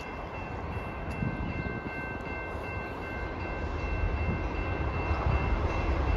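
CN train approaching: a low rumble that grows steadily louder, with faint steady high-pitched tones in the first half that fade out.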